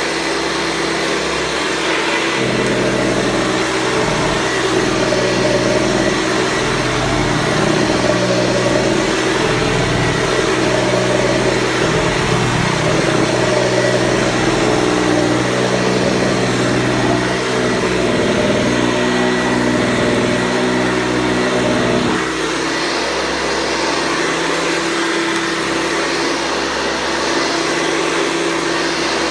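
Hoover Convertible 707 upright vacuum cleaner running, its motor and metal fan giving a steady whine. From about two seconds in until about twenty-two seconds a deeper, uneven hum joins it, then drops away.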